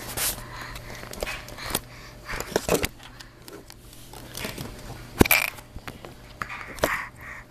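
Close handling noise on a phone's microphone as a baby grabs the phone: irregular clicks, knocks and rubbing, with a sharp knock about five seconds in.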